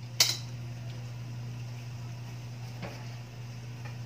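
One sharp metallic clank of the aluminium pot's lid about a fifth of a second in, over a steady low hum; a faint tick near three seconds.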